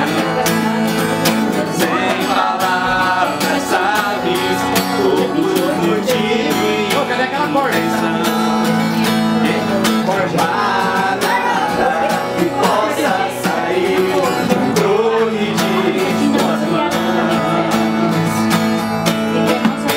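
Hofma acoustic steel-string guitar strummed steadily, with several voices singing a song along with it.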